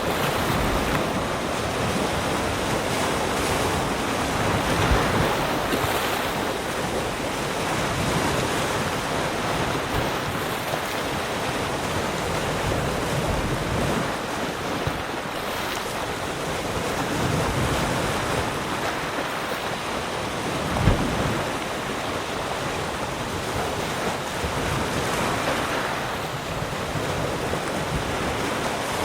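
Ocean surf: waves breaking and washing in a continuous rush that swells and eases every few seconds, with one brief low thump about 21 seconds in.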